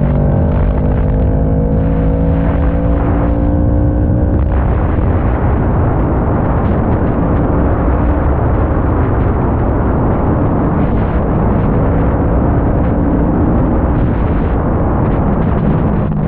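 Kawasaki ER-6n's 649 cc parallel-twin engine through an Arrow exhaust, pulling under way with its note climbing slowly for about four seconds. After that a loud, rough rushing noise covers the engine note.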